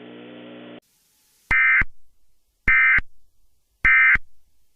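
Emergency Alert System end-of-message tones: three short, identical bursts of buzzy digital data about a second apart, signalling that the alert broadcast is over. A faint steady hum stops just under a second before the first burst.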